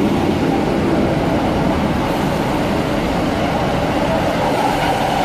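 Northern Class 156 Sprinter diesel multiple unit drawing into the platform: its underfloor diesel engines and wheels on the rails making a steady, loud running noise as the coaches pass close by.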